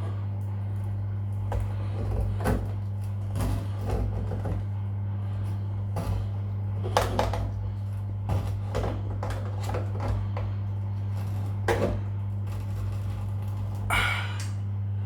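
Pliers gripping and tightening the shower hose's nut onto the shower unit, with irregular metallic clicks and knocks, over a steady low hum. A brief scraping noise comes near the end.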